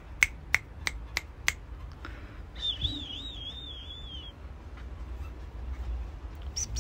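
Six finger snaps, about three a second, made to get a pet cat's attention. A high warbling whistle follows for about a second and a half.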